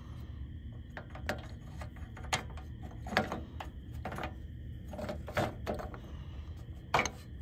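Roller drive chain on a John Deere 7000 planter row unit being pulled and rerouted around its driven sprocket by hand: a handful of sharp, scattered metallic clinks of the chain links, the loudest about seven seconds in, over a steady low hum.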